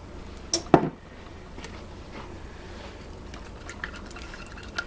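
Two quick knocks of kitchen utensils a little under a second in, the second the louder, then a low steady hum with a few faint light taps while a metal measuring cup of applesauce is held over a glass bowl of eggs.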